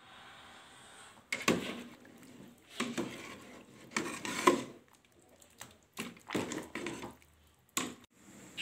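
A utensil stirring tapioca dough balls in a metal pot of boiling water, so they don't stick to the bottom: irregular knocks and scrapes against the pot, about once a second, over faint water noise.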